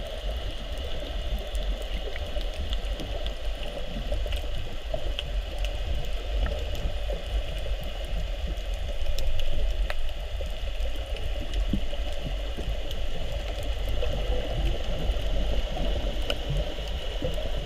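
Underwater ambience heard through a camera underwater: a steady low rumble of water with a hiss above it, dotted with scattered faint clicks and crackles.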